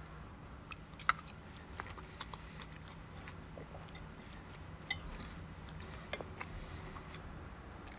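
Faint scattered clinks and taps of cutlery against plates during a meal, the sharpest about a second in and another near five seconds, over a low steady hum.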